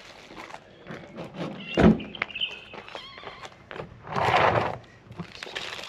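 Scattered knocks and shuffling, with one loud thump just under two seconds in and a burst of rustling noise around four seconds in.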